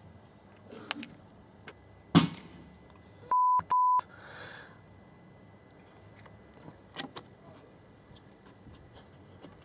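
A paint tin popping in the sun, one sharp loud pop about two seconds in, followed a second later by two short steady censor bleeps edited over the audio. A couple of small clicks near the middle come from crocodile clips being handled on the battery terminals.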